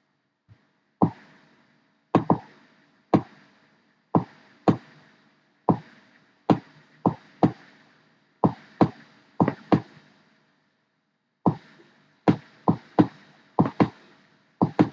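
Computer mouse clicks, about two dozen sharp ones at an uneven pace, some in quick pairs, with a short pause a little past the middle. Each click is a brush dab being painted onto a mask in Photoshop.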